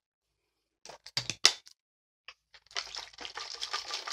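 Several sharp clicks as a plastic sports water bottle's flip-top lid is snapped shut, about a second in, then a continuous sloshing, rustling noise as the filled bottle is shaken to test it for leaks.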